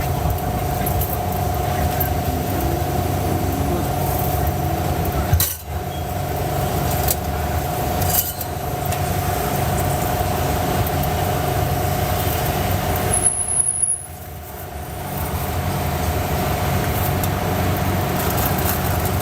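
A steady mechanical hum with a constant mid-pitched tone over a low drone. It drops out briefly about a third of the way in, and again for about a second past the middle.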